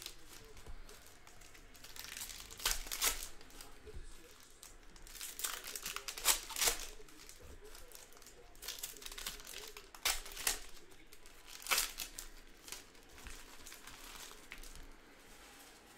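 Crinkling and rustling of packaging or paper being handled, in a string of short bursts every second or two.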